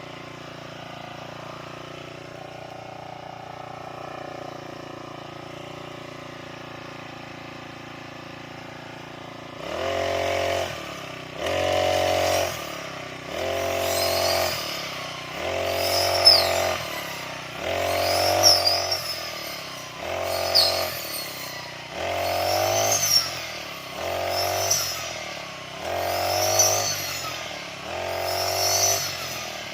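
Motorised grass cutter (brush cutter) idling steadily for about the first third. It is then throttled up again and again, about every two seconds, each rev rising in pitch and dropping back as the line swishes through grass.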